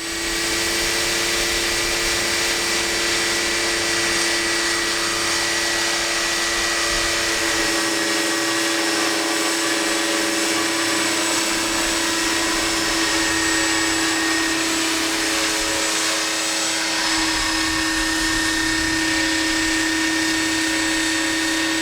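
A scale RC helicopter of the Aérospatiale SA 315B Lama running: a steady motor and drive whine over rushing rotor noise, its pitch wavering slightly now and then.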